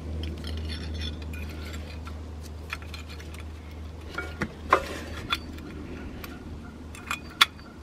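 BMW 7 Series rear brake pads being fitted into their caliper: scattered light metallic clicks and clinks as the pads and their clips knock against the caliper, the loudest a little under five seconds in. A steady low hum runs underneath and fades about five seconds in.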